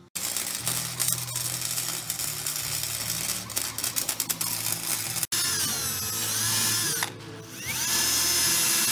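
Arc welding on steel: an irregular crackling of the welding arc over a low hum for about five seconds. Then a cordless drill winds up and down in pitch twice and runs at a steady whine, drilling into a steel bracket.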